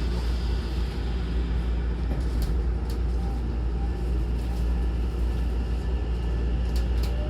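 Steady low rumble inside a Hankyu 9000-series train car, with a few sharp clicks. Near the end a faint whine starts rising in pitch.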